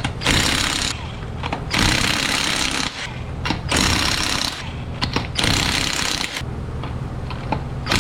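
Pneumatic impact wrench hammering in four bursts of about a second each, with short pauses between them, loosening fasteners to remove a CV axle.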